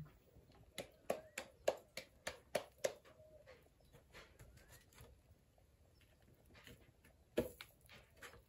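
Hands patting a ball of corn masa flat into a bocol: a quick run of about eight slaps over two seconds, then a single sharper knock near the end.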